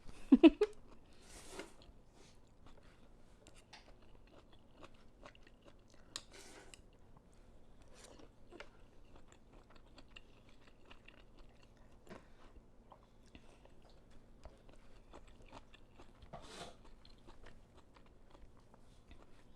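Close-up eating sounds of someone chewing noodles, with small wet mouth clicks and a few short slurps.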